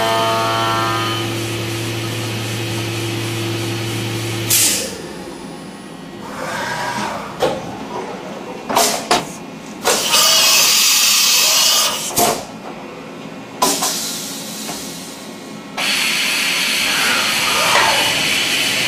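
CNC milling machine with a rotary fourth axis machining a brass part. A steady machine hum for the first four seconds or so, then a sharp noise, and after that bursts of high hiss and short knocks with quieter gaps between them, with steady noise returning near the end.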